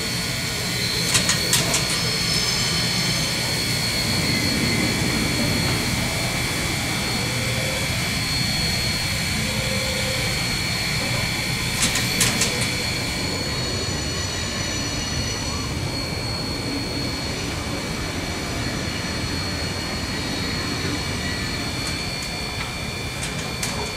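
Queensland Rail BB18¼ class steam locomotive 1079 standing in steam: a steady hiss with a high, even whine from its Pyle-National steam turbo-generator. Two short bursts of rapid ticking come about a second in and again about twelve seconds in.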